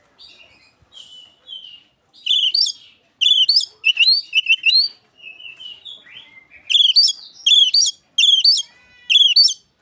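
Oriental magpie-robin singing loud, rapid phrases of clear whistled and chattering notes, in a song that mimics the Asian pied starling. After a quieter start, the phrases come in quick bursts, ending in four similar phrases given in a row about three-quarters of a second apart.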